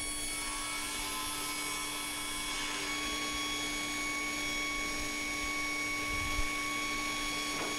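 Saw of a Hammer B3 Winner Comfort combination woodworking machine running steadily with an even hum while a long softwood board is fed through it to cut a rebate.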